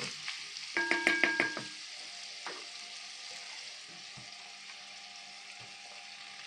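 Meat sizzling in oil in a multicooker's bowl: a steady hiss. About a second in there is a brief, quick run of ringing clinks.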